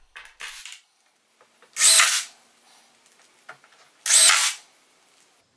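Power drill run in two short bursts of about half a second each, some two seconds apart, working into wood.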